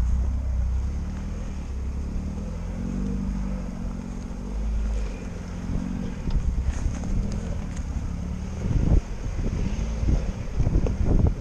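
Lada Niva engine running as the car drives off-road, its pitch rising and falling with the throttle over a heavy low rumble. From about nine seconds in come several sharp knocks and thumps.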